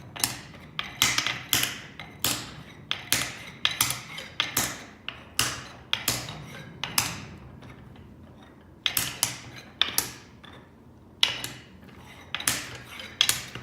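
Wooden beads clacking sharply against each other and the board as they are moved and set down, an uneven run of knocks, with a pause of about a second past the middle.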